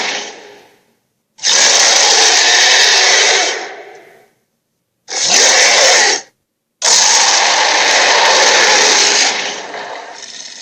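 Dragon sound effect: harsh, rasping roars with no clear pitch, in separate blasts. The first fades out at the start, a long one follows, then a short one, then a long one that trails away near the end.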